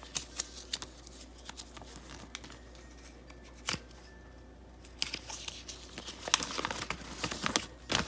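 Paper and plastic toy packaging being handled: crinkling and rustling with scattered small clicks, sparse at first and busier in the second half, as a paper checklist and blind bags are unfolded and moved about.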